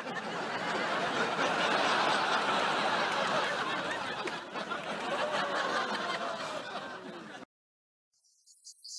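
Canned sitcom laugh track: a studio audience laughing together. It swells to a peak about two seconds in, tapers off, and cuts off abruptly about seven and a half seconds in.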